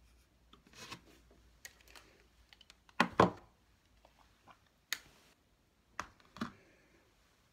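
Scattered clicks, taps and knocks of objects being handled close to the microphone, irregular rather than a steady rhythm. The loudest is a pair of knocks about three seconds in.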